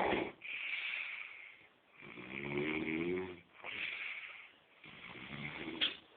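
A man snoring in his sleep: rasping snores about every three seconds, each followed by a softer, breathy breath.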